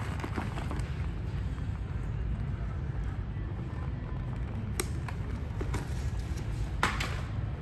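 Steady low background rumble, with two sharp clicks as the backpack straps are handled, the louder one near the end.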